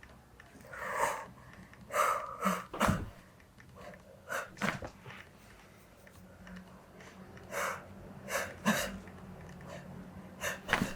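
A series of short sniffs and breaths, about a dozen brief puffs spread irregularly over several seconds, mixed with a few soft knocks of movement.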